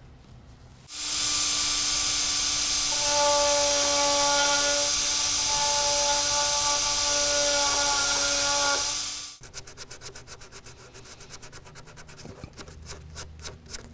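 A small rotary power tool runs steadily for about eight seconds with a hiss and a whine, its bit boring out the mounting hole of a plastic headlight tab, and then stops abruptly. After that comes a quick series of rubbing strokes as an abrasive pad scuffs the repaired plastic.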